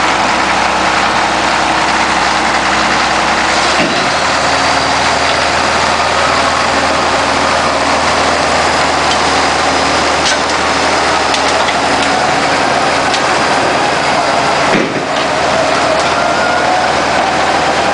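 Caterpillar 977K crawler loader's diesel engine running steadily as the machine drives along on its steel tracks; the low engine note shifts about four seconds in.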